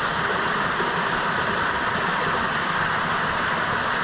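Steady rush of a canyon creek's water running through the boulders, an even, unchanging hiss.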